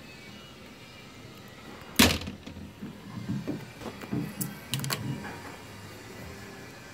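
A boat's center-console door is shut with a sharp bang about two seconds in. A run of lighter knocks and thumps follows.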